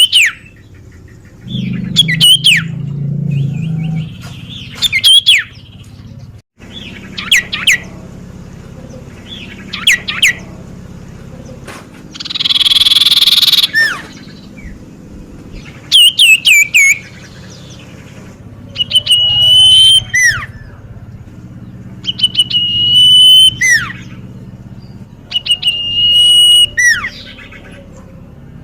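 Common iora (cipoh) calling over and over: quick falling whistles, then long held whistled notes that each drop sharply at the end, with one harsh rasping call near the middle.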